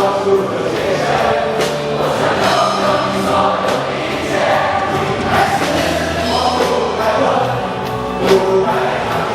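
Live band music with many voices singing together, in a dense, steady mix with drums.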